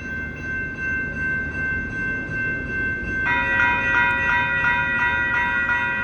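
Electronic crossing warning bells ringing at a light-rail crossing as a train approaches. A second bell joins about three seconds in, pulsing about three times a second.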